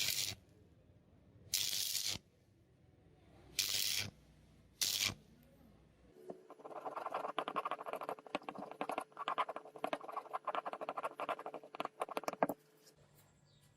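Scratchy hand scraping and rubbing: four short strokes, then about six seconds in a long run of rapid, crackling scratching that stops shortly before the end.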